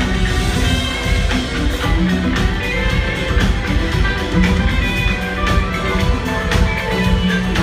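Live rock band playing loudly, electric guitar over a steady drum beat and bass, heard from the audience.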